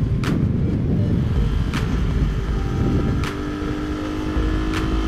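Motorcycle riding at speed, recorded by a camera on the bike or helmet: heavy wind rush over the microphone with the engine running underneath. Sharp ticks come about every second and a half, and a steady tone sets in about three seconds in.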